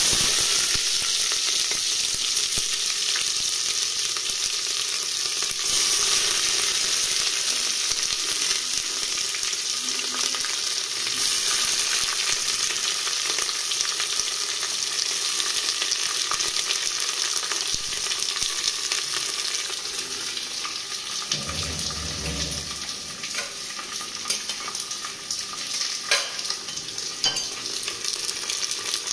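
Sliced onions and green chillies sizzling as they fry in hot mustard oil in an aluminium pressure cooker. The sizzle starts loud the moment they go in and eases a little over the following seconds, with a few faint clicks near the end.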